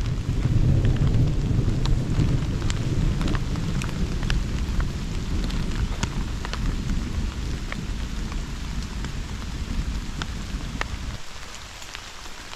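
Steady rain falling, with single drops ticking sharply over the hiss, and a low rumble underneath that dies away about eleven seconds in.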